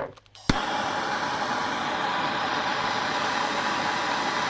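A handheld gas torch is lit with a sharp click about half a second in, then its flame burns with a steady hiss to heat a nail red hot.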